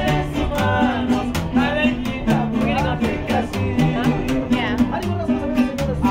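Live acoustic guitar strummed in a steady rhythm over a plucked upright bass line of separate low notes, with a man singing.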